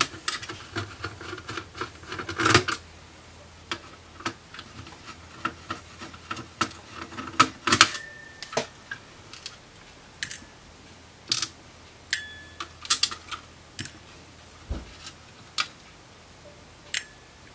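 Irregular sharp clicks and taps of a screwdriver and small screws against the sheet-metal case and circuit board of an opened digital video recorder, while its board screws are taken out; a couple of the knocks ring briefly with a metallic tone.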